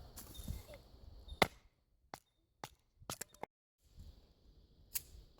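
A firesteel struck several times to shower sparks onto tinder: short, sharp scrapes with pauses between, the loudest about one and a half seconds in.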